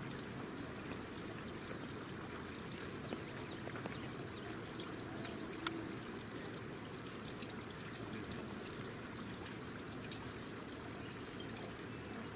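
Steady outdoor rushing ambience, like running water, with a single sharp click about five and a half seconds in.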